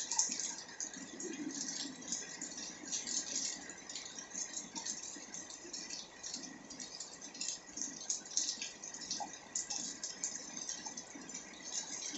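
Rain falling steadily, a dense, irregular crackle of drops striking hard surfaces and standing water.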